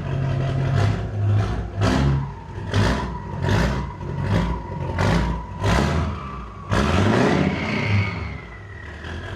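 A built 6.0 Powerstroke V8 turbodiesel with a big S400-series turbo and a freshly clamped-on exhaust elbow being free-revved. It takes about eight quick throttle blips, then one longer rev near seven seconds, then settles toward idle as the turbo whistle falls away.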